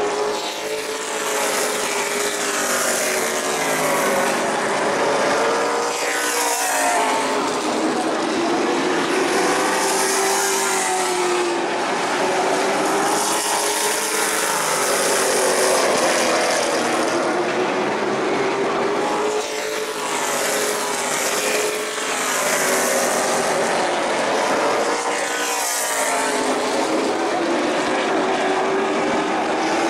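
Pro late model stock cars racing on an asphalt short track. The engines rise and fall in pitch again and again as the cars go past.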